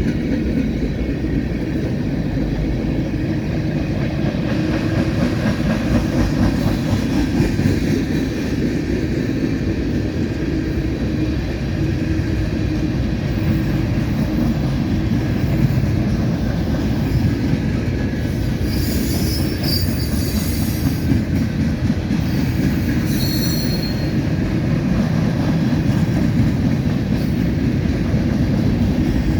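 Freight cars of a CSX mixed manifest train rolling past: a steady rumble of steel wheels on rail, with two brief high-pitched wheel squeals about two-thirds of the way through.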